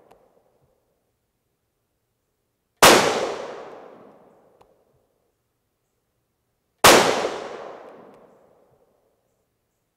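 Two shots from a .223 Remington 700 BDL Varmint Special rifle, about four seconds apart. Each sharp report is followed by an echo that dies away over about two seconds.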